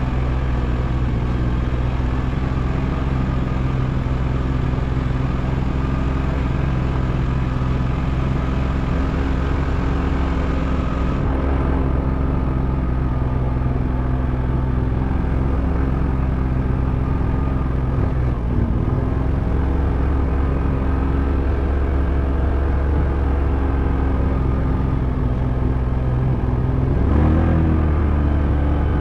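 A vehicle engine running steadily with rumbling road noise while driving on a gravel road. The engine pitch and loudness rise briefly near the end.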